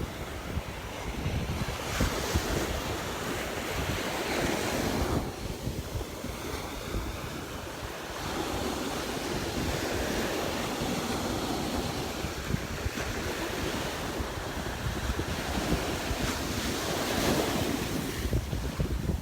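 Small waves breaking and washing up the shore, swelling and easing every few seconds, with wind buffeting the microphone.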